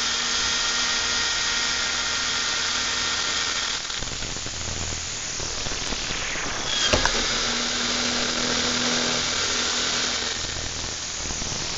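Corded electric drill running steadily under load, drilling a hole through a stainless steel muffler tube, with a high whine. About four seconds in the whine fades into a lower grinding as the bit cuts, and there is one sharp click about seven seconds in.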